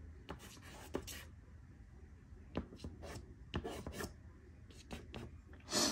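Nupastel hard pastel stick scratching across pastel paper in a series of short, rasping strokes. The loudest stroke comes near the end.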